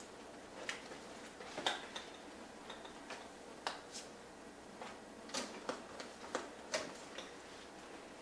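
Buttons on a cash machine's keypad being pressed: a dozen or so short, sharp clicks at an uneven pace, the loudest about two seconds in.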